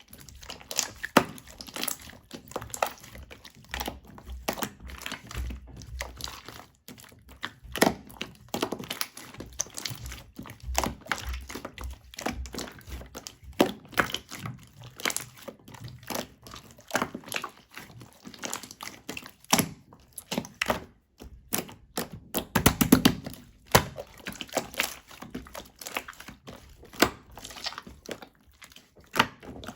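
Irregular knocks, taps and clicks, scattered unevenly, with one louder, deeper thud about three quarters of the way through.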